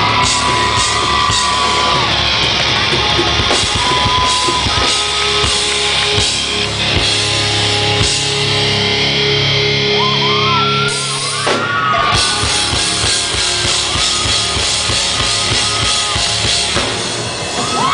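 Live rock band playing loud: a drum kit and electric guitars, heard through a phone microphone in the audience.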